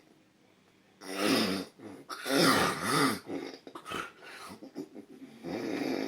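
A man snoring heavily: a series of loud, rasping snores whose pitch wavers up and down, the loudest about two and a half seconds in, with quieter snorts between.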